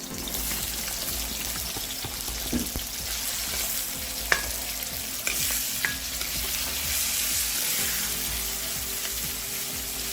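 Onion, garlic, pimento peppers and green seasoning sizzling steadily in hot oil in a karahi as they fry, with a few sharp clinks about four to six seconds in.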